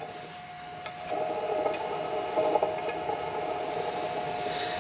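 Old York Borg Warner reciprocating automotive AC compressor running, pulley-driven by an electric motor on a variable frequency drive, with a steady high whine. The mechanical running sound grows louder about a second in.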